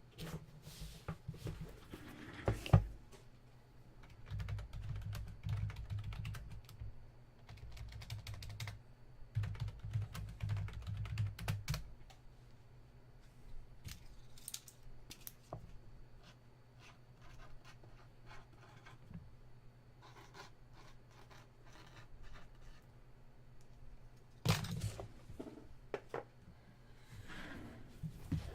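Irregular light clicks, taps and rustles of trading cards and their plastic holders being handled on a desk, over a steady low electrical hum, with heavier low bumps in the first half and again near the end.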